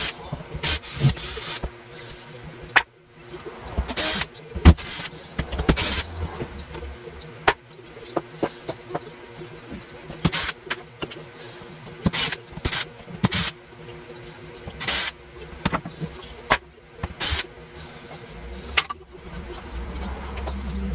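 Irregular knocks and clatter of wooden layout benchwork and backdrop panels being taken apart and handled, with sharp impacts every second or so.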